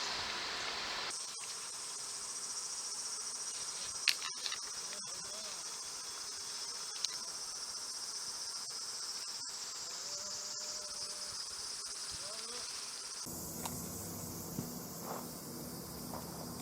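Steady high-pitched chorus of summer insects, with a few sharp clicks. The background changes abruptly about a second in and again near the end.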